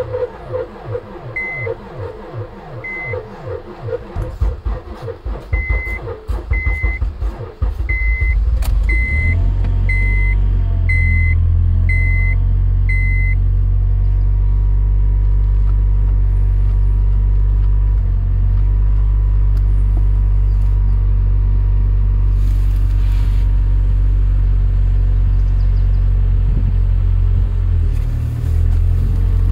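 Honda Civic 1.8's four-cylinder engine cold-started at about −28 °C on a seven-year-old battery: the starter cranks for about eight seconds with a few sputtering firings before the engine catches. It then runs steadily at a fast cold idle. A chime beeps repeatedly, faster after a few seconds, and stops about 13 seconds in.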